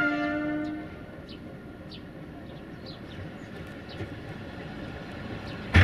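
A locomotive horn blows briefly, dropping to a lower tone and stopping about a second in. Over a steady rail rumble with small falling chirps, a sharp, loud clunk comes near the end.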